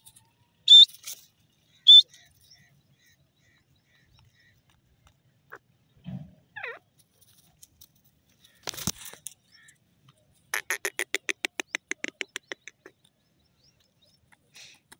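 Grey francolin calling: two loud, sharp, high notes within the first two seconds, a few softer scattered calls, then a rapid run of about eight pulses a second lasting some two seconds.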